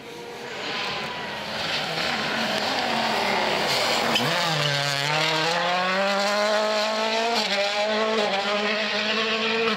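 World Rally Car's turbocharged 1.6-litre four-cylinder engine at high revs as the car approaches. About four seconds in there is a sharp crack and the engine note drops sharply as the car slows into the corner. The note then climbs steadily as it accelerates out.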